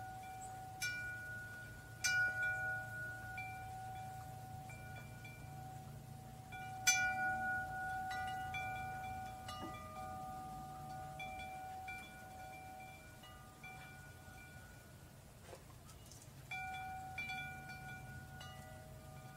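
Metal tube wind chime swaying and being struck now and then, each strike ringing on in a few overlapping pitches that slowly fade. The loudest strike comes about seven seconds in; strikes thin out in the middle and come in a cluster again near the end.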